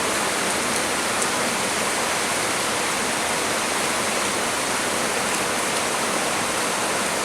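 Heavy rain falling, a dense, steady hiss.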